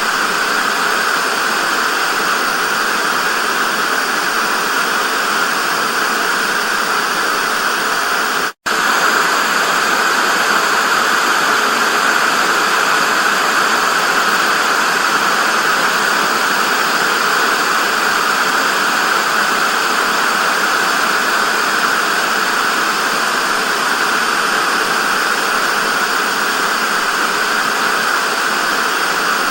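Television static: a steady, even hiss of white noise, brightest in the upper midrange. It drops out for a split second about eight and a half seconds in.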